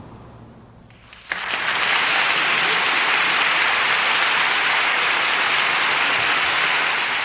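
Crowd applause, starting suddenly about a second in and holding steady and loud.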